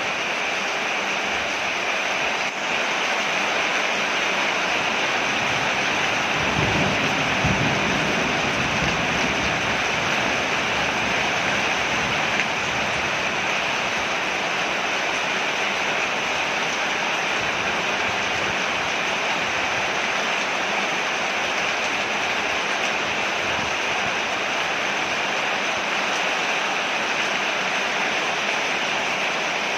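Rain falling steadily on a porch, an even hiss of water. A low rumble swells and fades about seven seconds in.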